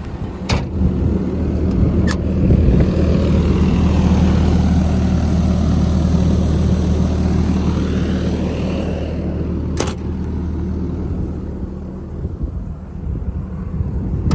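JCB JS130 tracked excavator's diesel engine idling with a steady low hum. Three sharp clicks or knocks are heard, about half a second, two seconds and ten seconds in.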